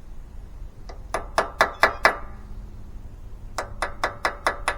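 Small hammer tapping on metal at the valve seat of a Craftsman mower engine's aluminum block, peening the block material in to hold the steel seat. Two quick runs of about six ringing taps each.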